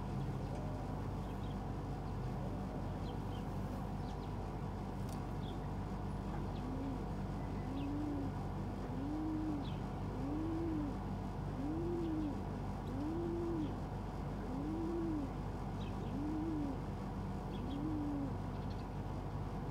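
Pigeon cooing: a series of about nine low coos, each rising and falling in pitch, roughly one every second and a half, starting about six seconds in. A steady background hum runs under it.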